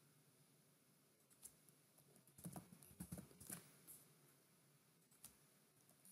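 Faint computer keyboard typing and mouse clicks: a handful of scattered keystrokes, bunched together about halfway through, over a quiet room.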